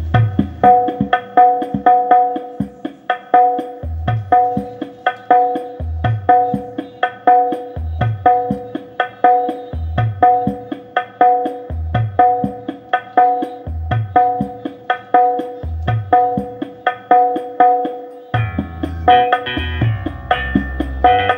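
Music played through a bare, unmounted 15-inch speaker driver with a 4-inch voice coil, a copy of the RCF LF15X400, fed straight from a phone to a power amplifier with no equalizer or crossover. It plays a rhythmic percussion track with deep bass hits about every two seconds. The music turns busier about three seconds before the end.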